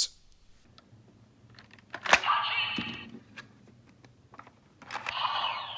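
Kamen Rider Gotchard DX Valvarusher toy weapon: a sharp click about two seconds in, followed by about a second of electronic sound effects from its small, tinny speaker. Another burst of its sound effects starts near the end.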